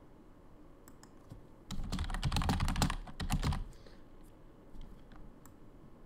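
Typing on a computer keyboard: a quick run of keystrokes lasting about two seconds, with a few single key taps before and after it.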